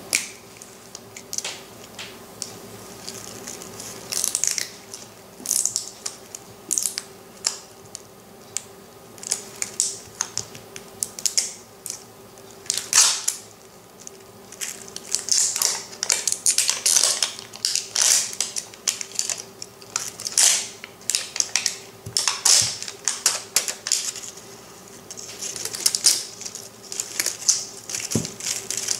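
Plastic wrapping crinkling and crackling in irregular bursts as the layers of an LOL Surprise ball are peeled and torn off by hand.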